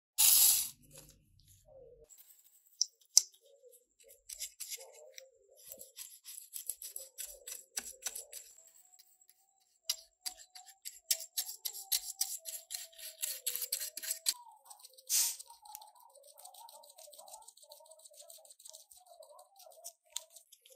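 Stiff-bristled paintbrush scrubbing glue onto the plastic interior tub of a diecast model car: rapid, scratchy strokes of bristles on plastic. A loud knock at the start and another sharp burst about fifteen seconds in, followed by a softer high hiss.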